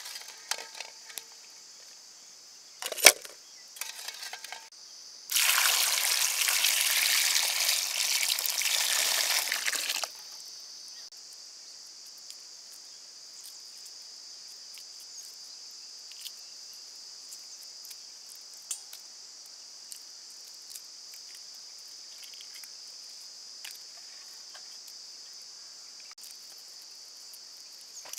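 Hard-boiled eggs knocking against an aluminium pan twice, then a loud rush of pouring water for about five seconds. Crickets chirr steadily in the background, with small clicks of eggshells being cracked and peeled later on.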